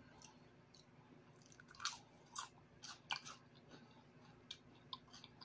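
A man chewing food, faint, with irregular short mouth clicks and smacks starting about two seconds in.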